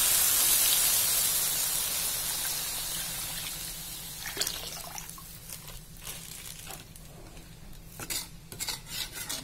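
Coconut milk is poured into a hot metal wok of frying spice paste, and the sizzle dies away over the first few seconds as the milk covers the paste. After that a metal spatula scrapes and knocks against the wok a few times as the mixture is stirred, mostly near the end.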